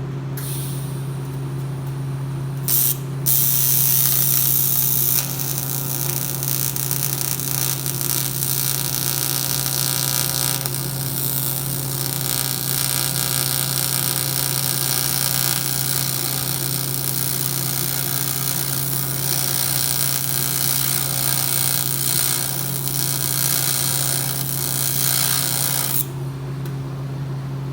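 MIG welder running a bead on aluminium: a short burst of arc, then a long continuous hissing, crackling arc that cuts off suddenly near the end, over the steady hum of the welder.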